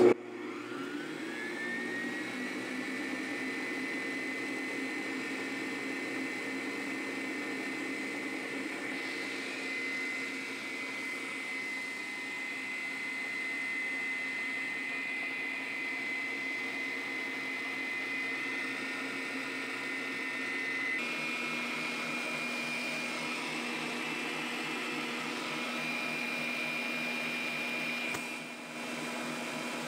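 Oster stand mixer motor running steadily, its wire whisk beating egg yolks, sugar and a little water into a foamy cream. The motor whine rises as it spins up at the start, holds steady, and steps slightly higher about two-thirds of the way through.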